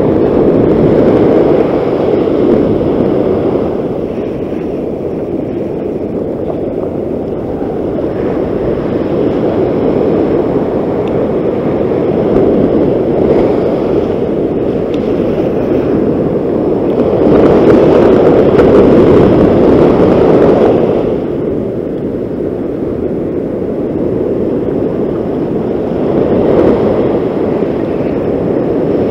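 Ocean surf breaking and washing up the sand, with wind on the microphone. It swells and ebbs with each wave, loudest about two-thirds of the way through.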